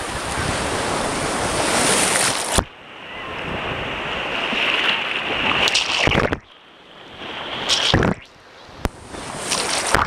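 Sea surf washing over a waterproof camera set at the waterline. The rush of the foam swells and then cuts off suddenly three times, muffled, as waves cover the microphone and drain off.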